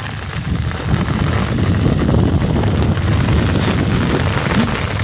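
Strong wind buffeting a phone's microphone during a rainstorm, a loud, steady low rumble.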